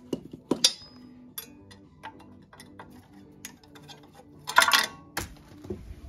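Small metal and plastic clicks and clinks from handling tools and parts on a workbench, with a brief louder rustle about four and a half seconds in.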